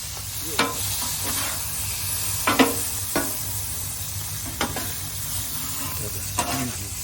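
Food sizzling steadily on a hot flat-top griddle, with several sharp clicks and clacks scattered through it.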